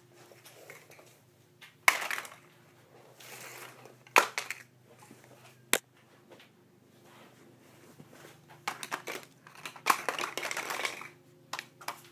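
Playing cards rustling and slapping onto a wooden floor in short, separate bursts as a ferret knocks down a card tower, with a few sharp clicks. There is a burst about two seconds in, another about four seconds in, a sharp click near six seconds, and a busier stretch of clatter near the end.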